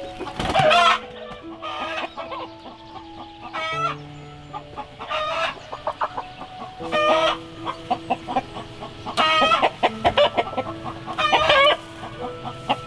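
Chickens calling and clucking in short, loud calls that come every one and a half to two seconds, over soft background music with held notes.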